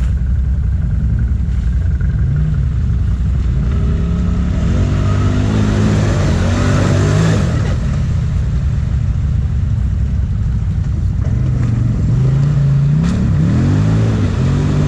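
Quad bike (ATV) engines running off-road, revving up and down twice, with a steady low rumble under them.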